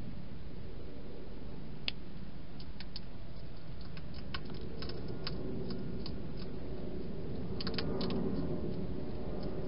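Hedgehog crunching dry food: a scatter of sharp, irregular clicks over a steady low hiss, bunched about halfway through and again near the end.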